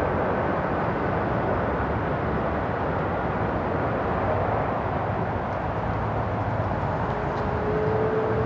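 Boeing 747's four jet engines, heard from afar as it rolls out on the runway after landing: a steady rush of engine noise, with a thin whine joining near the end.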